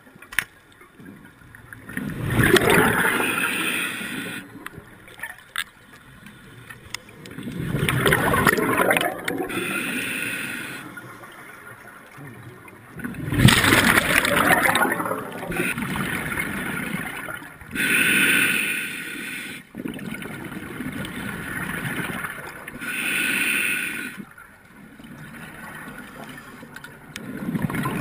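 Scuba diver breathing through a regulator underwater, with bursts of exhaled bubbles gurgling out every few seconds and quieter gaps between breaths.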